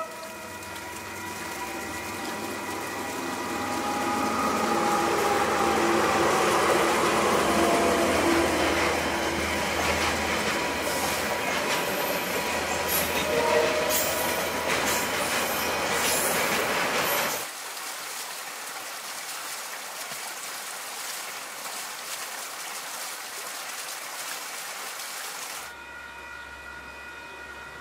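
Freight train passing, its wagons rumbling and clattering over the rails, building up over the first several seconds. The train sound cuts off suddenly about seventeen seconds in, leaving quieter background sound.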